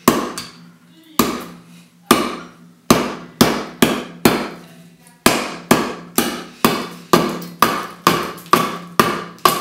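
Japanese nata, a heavy single-bevel wood cleaver, chopping into the edge of a wooden board and knocking off chips: about seventeen sharp strikes, spaced irregularly at first and then coming faster, about two a second, in the second half.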